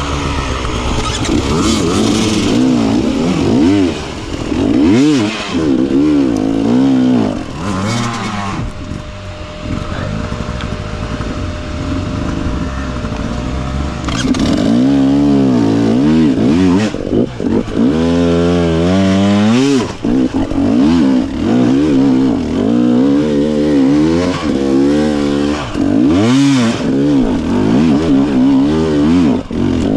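Dirt bike engine revving hard, the throttle opened and closed over and over so the pitch repeatedly climbs and drops, with a quieter lull of a few seconds near the middle.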